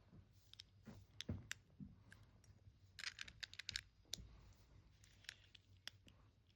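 LEGO bricks clicking and tapping together as plastic pieces are handled and pressed into place: faint, irregular sharp clicks, with a quick flurry about three seconds in.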